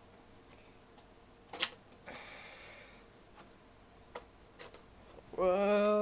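The upper case of a 12-inch PowerBook G4 being pried up by hand: its catches give a few sharp clicks, the strongest about a second and a half in, with a brief scrape just after. Near the end comes a short voiced exclamation as the case comes free.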